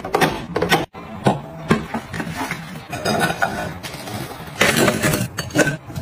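Close-up handling of food containers: plastic bottles set into a clear plastic refrigerator door bin and glass bowls moved about, a string of sharp knocks and light clinks.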